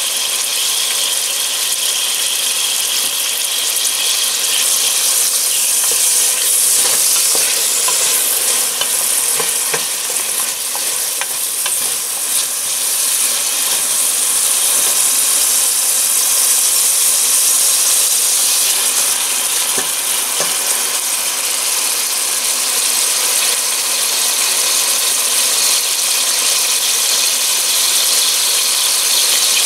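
Sliced onions and celery sizzling steadily in olive oil in a stainless steel pot as they start to soften and colour. A wooden spoon stirs them, with a few scrapes and taps on the pot around the middle.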